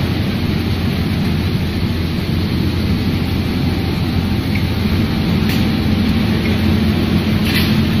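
Steady machinery hum and rumble of a running microwave salt-drying tunnel line and its belt conveyors. A couple of faint clicks come in the second half.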